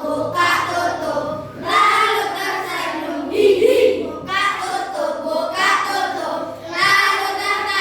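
A class of young children singing a short song together in unison, phrase by phrase.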